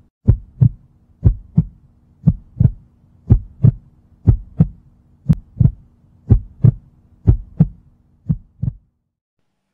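Heartbeat sound effect: a steady lub-dub double thump about once a second over a low, steady hum. There are nine beats, the last two softer, and then it stops suddenly.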